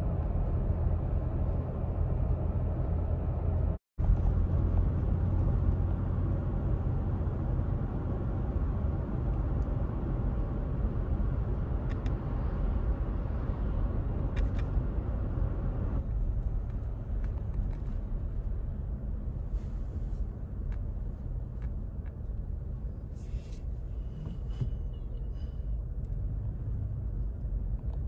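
Steady low rumble of road and engine noise heard inside the cab of a 2021 Toyota Tacoma TRD Off-Road on the move, cutting out briefly about four seconds in. It eases after about sixteen seconds as the truck slows onto a gravel lot.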